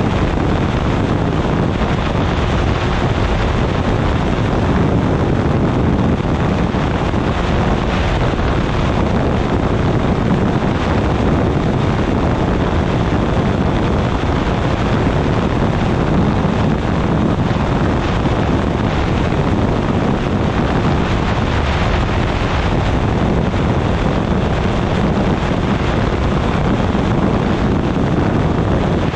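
Steady, loud rush of airflow over the microphone of a wing-mounted camera on a weight-shift microlight trike in cruising flight, with the drone of its pusher engine and propeller under it.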